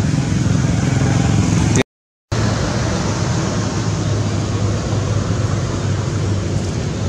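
Steady, loud outdoor background noise with a low hum under it, broken by a half-second drop to complete silence about two seconds in, where the recording is cut.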